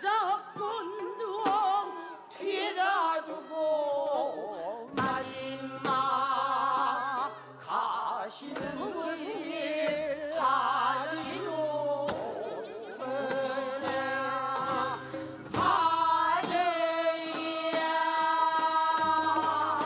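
Korean ssitgimgut shaman ritual music: a female shaman sings with a heavy, wavering vibrato over sustained tones from traditional instruments such as daegeum, ajaeng and piri, with a few sharp strikes.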